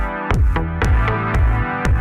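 Electronic dance music with a deep kick drum on every beat, about two a second, over held synth chords.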